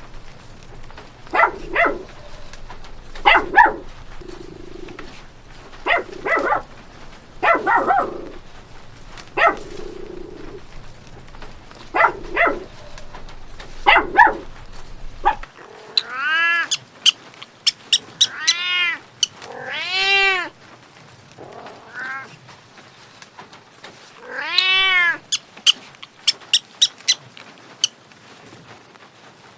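A dog barks repeatedly in short, sharp barks, some of them in pairs. Then a cat meows about five times in long calls that rise and fall in pitch.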